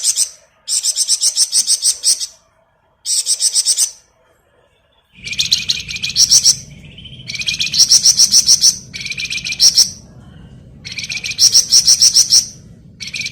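Flamboyan songbird singing its rapid 'ngebren' song: about seven bursts of quick, high, evenly repeated notes, each around a second long, separated by short pauses. A faint low hum comes in about five seconds in.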